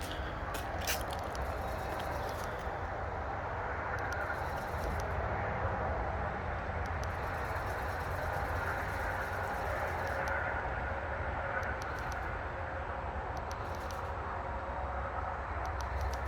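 Steady outdoor background noise: a low rumble under a broad hiss, with a few faint clicks in the first second.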